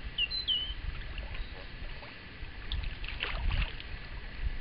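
Lake water sloshing and splashing around a wading angler as he lets a carp go from his hands, with a louder run of splashes about three seconds in. Wind rumbles on the microphone underneath.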